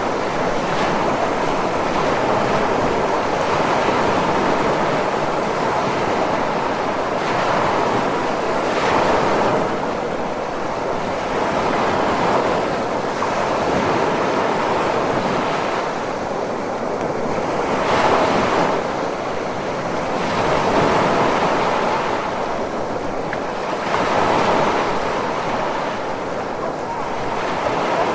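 Ocean waves washing in continuously, a steady rush of surf that swells and eases every three to six seconds.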